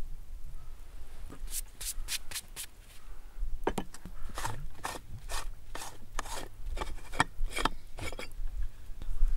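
Screw-top lid of a metal milk can being twisted open, grating metal on metal in a run of short rasping scrapes. The can is a khorkhog cooking vessel, hot from the fire.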